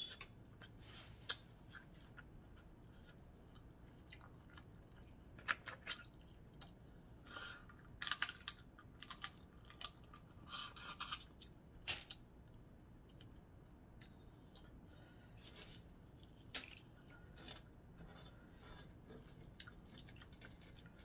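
Crab-leg shells being cracked and picked apart by hand, as irregular short crackles and snaps, with quiet chewing in between.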